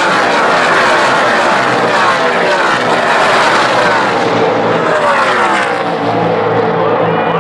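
A pack of NASCAR race trucks' V8 engines running at full speed past the stands, engine notes sliding down in pitch one after another as each truck goes by.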